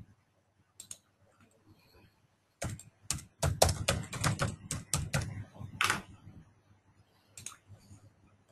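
Typing on a computer keyboard: a quick run of keystrokes starting about three seconds in and lasting about three seconds, with a few single key clicks before and after.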